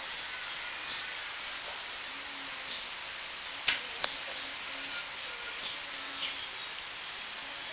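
Steady hiss of room noise, with a single sharp click a little past the middle and a few faint short tones.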